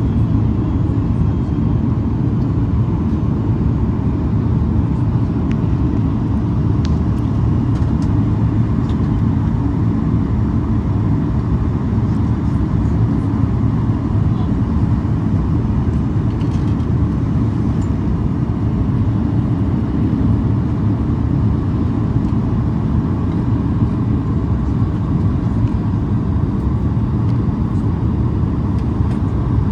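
Steady low rumble of a Boeing 737 MAX airliner heard from inside the passenger cabin.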